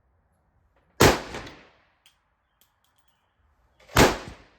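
Two pistol shots from a 5.7×28mm handgun, about three seconds apart, each with a short echo trailing off.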